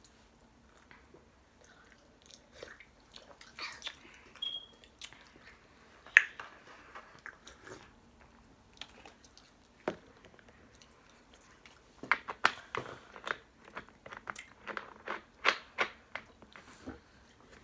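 Cookies being bitten and chewed close to the microphone. The crunches start as scattered sharp clicks and turn into a quick run of crisp crunches over the last few seconds.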